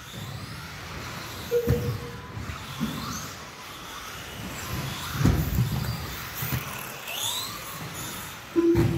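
Electric RC cars racing on a carpet track: high motor whines rising and falling over the noise of the cars, with three heavy knocks, the loudest about five seconds in and near the end.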